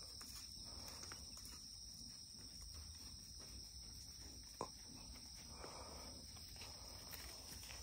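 Faint, steady high-pitched chirring of insects, with a single short click about halfway through.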